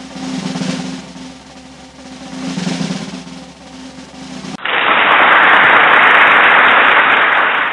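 Edited-in soundtrack: a low drum roll that swells twice, then, about four and a half seconds in, a sudden loud rushing noise that holds for about three seconds and then starts to fade.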